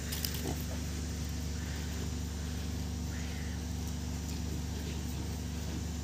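A vehicle engine idling with a steady low hum.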